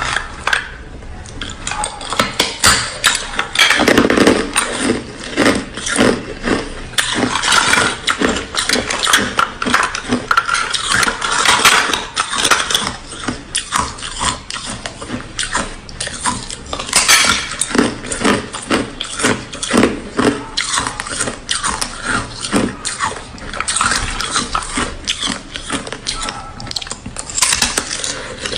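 Ice being bitten and chewed right at the microphone: a dense, irregular run of sharp cracks and crunches as the pieces break between the teeth.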